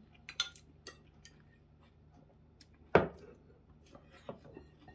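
Tableware clatter: a spoon and chopsticks clicking against a bowl and plate in a few short ticks, with one louder knock about three seconds in as the bowl is set down on the table.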